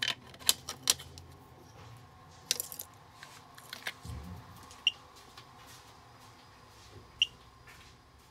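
Handling noise from a plastic car remote key fob being moved and set down on a table: several sharp clicks and knocks early, a dull thump about four seconds in, then two short high beeps a couple of seconds apart.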